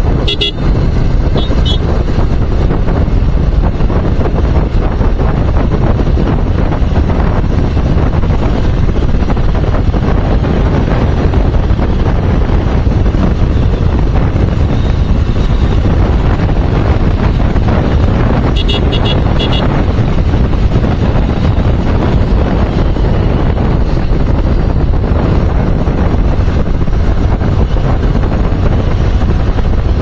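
Motorcycle riding along a road, with steady wind noise rushing over the microphone and the bike's running noise underneath. Short high-pitched horn beeps sound about half a second in and just after, and a quick run of several beeps comes a little past halfway through.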